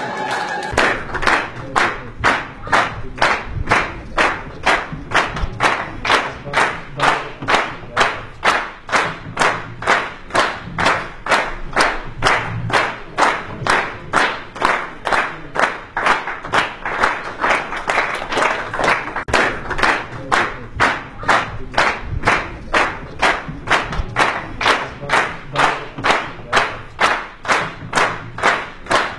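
A crowd clapping together in a steady rhythm, about two claps a second.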